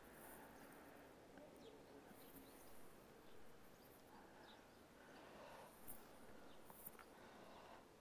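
Near silence: faint outdoor ambience with a few faint, brief ticks.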